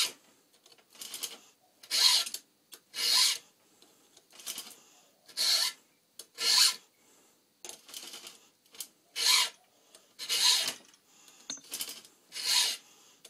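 A file being stroked across the cutters of a 3/8-pitch chainsaw chain to sharpen them: a series of separate rasping strokes, about one a second, with brief pauses between them.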